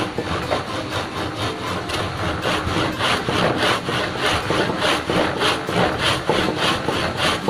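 Hand saw cutting through a small wooden block, quick even back-and-forth strokes of the teeth rasping through the wood, growing louder a couple of seconds in.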